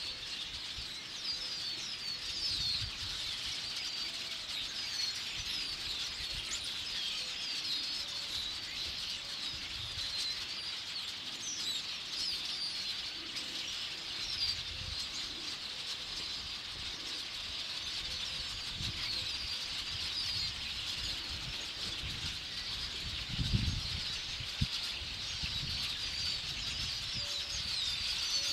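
A large flock of swallows calling overhead: a dense, steady chatter of many short, high chirps. A few low rumbles come through, the loudest about three-quarters of the way in.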